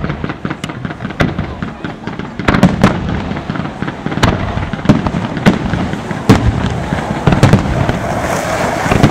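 Fireworks display: a rapid, continuous barrage of bangs and crackling shells, with louder reports standing out several times through the barrage.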